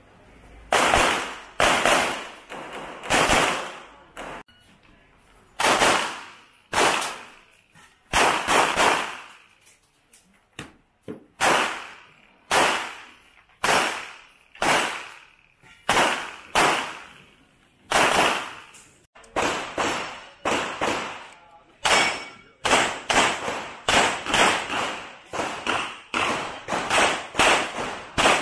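Competition handgun shots fired in strings on IPSC stages, each a sharp crack with a short echoing tail. The shots come about one a second at first and quicken to two or three a second in rapid strings later on.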